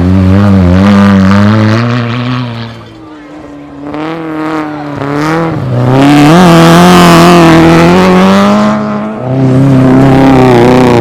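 Rally car engine driven hard. Its pitch climbs and drops with throttle and gear changes, easing off about three seconds in and coming back loud a few seconds later, with a brief dip near the end.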